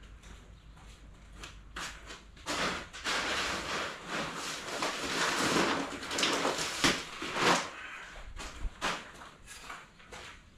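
Footsteps on a concrete floor, then a few seconds of loud rustling and scraping as a seed bag is pulled off a tarp-covered pile and lifted, with a couple of sharp knocks, then footsteps again.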